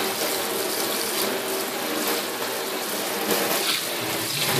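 Tap water running steadily onto an aluminum bow sight in a stainless-steel sink, rinsing off oven cleaner and the dissolved black anodizing.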